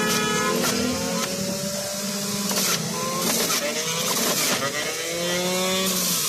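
Electric juicer's motor whining as carrots are pushed down into it by hand and ground up, its pitch sagging and rising again as each carrot loads the motor.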